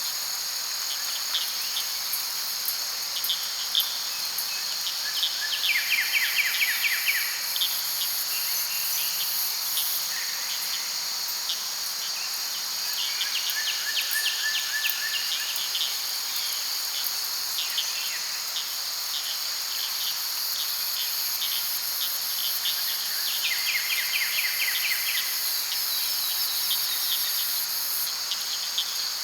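Daytime late-summer forest ambience: a steady, high-pitched chorus of insects such as crickets. Over it, a rapid lower trill comes in about every eight to ten seconds.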